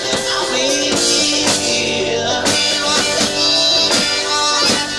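One-man band playing live: a drum kit struck roughly twice a second under strummed guitar and a melody of held, wavering notes.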